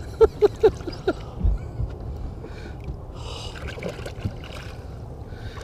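Lake water sloshing and gurgling around a hand holding a muskellunge by the tail beside the boat as the fish is revived for release. In the first second there is a quick run of five short, loud chirps about a fifth of a second apart, and later a brief splash.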